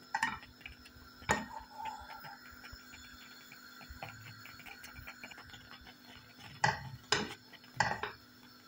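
Wire balloon whisk stirring thick plantain-and-milk porridge in a saucepan, the wires clinking against the pan now and then: once about a second in, and several times near the end.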